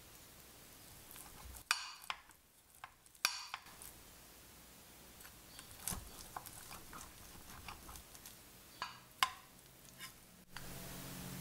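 Slotted metal spatula cutting through a baked zucchini and potato casserole in a glass baking dish: about five sharp clinks and scrapes of metal against the glass, spaced a second or more apart, over a quiet hiss.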